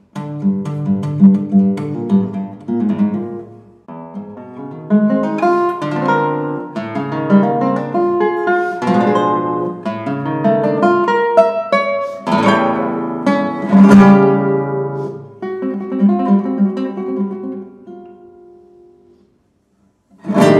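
Nylon-string classical guitar playing solo: phrases of plucked notes and chords, with a short break about four seconds in and a strong accented chord around the middle. The sound dies away to near silence near the end, then a loud new phrase begins just as it closes.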